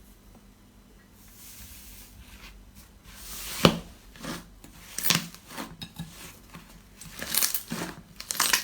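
Slime being pressed and squeezed by hand, giving soft squishes and sharp crackling pops at irregular intervals. The loudest pop comes about three and a half seconds in, with a denser run of crackles near the end.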